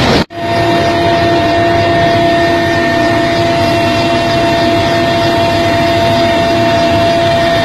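Helicopter engine and rotor noise heard inside the cabin: a loud, steady rush with a steady high turbine whine over it. It starts just after a brief cut near the start.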